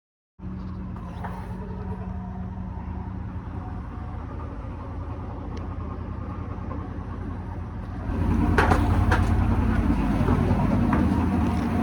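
Outdoor air-conditioning condenser unit running: a steady low hum from the compressor and fan motor with fan noise over it, growing louder and rougher about eight seconds in.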